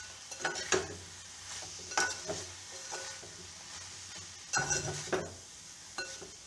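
A spoon stirring a thick mix of vegetables and grated coconut in a metal pot, with soft scraping and irregular clinks against the pot. A busier run of scrapes and knocks comes just before five seconds in.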